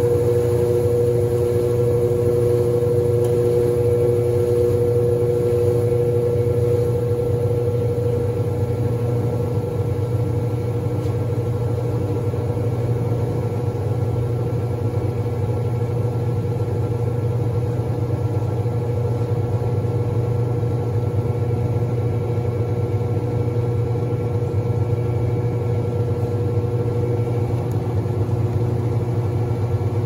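Brastemp Baby BLK20 top-loading washing machine in its spin cycle, the tub spinning at speed with a steady motor hum and whine.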